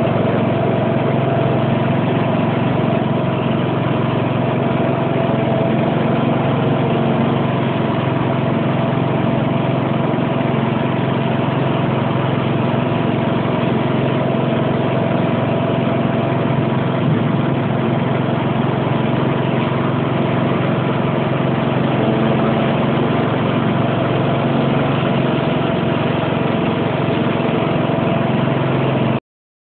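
Sentinel garden tractor's engine running steadily at an even, unchanging speed.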